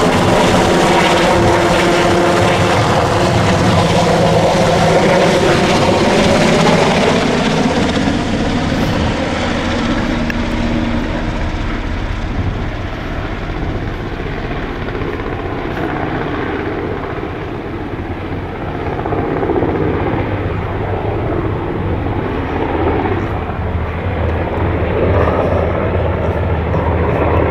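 Sikorsky S-92 helicopter flying low overhead, its rotors and twin turbine engines loudest over the first several seconds with tones sliding down in pitch, then quieter in the middle and louder again near the end.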